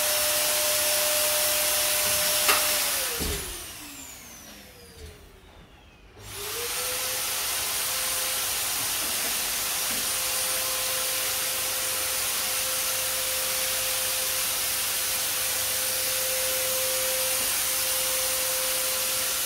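Handheld electric disinfectant fogger running with a steady motor whine and rush of air. About two and a half seconds in it clicks off and its motor winds down. A few seconds later it starts again, rising quickly back to a steady whine.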